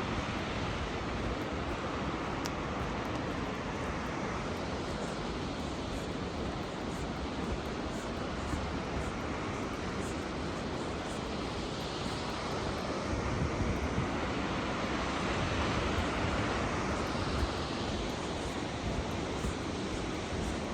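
Steady rushing roar of Salt Creek Falls' water heard through the forest, with low wind rumble on the microphone; it swells slightly in the later part.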